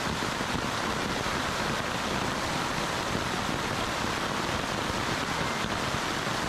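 Torrential rain pouring down from a large-scale rainfall simulator: a dense, steady hiss of heavy downpour with no let-up.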